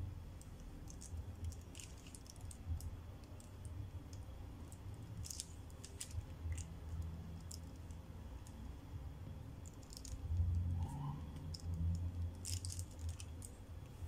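Coloured pencil scratching and tapping on paper in short, irregular strokes over a steady low hum.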